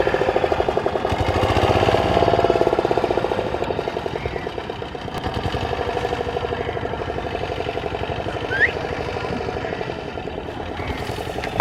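Fishing boat's engine running steadily at a constant speed, with rapid, even firing pulses.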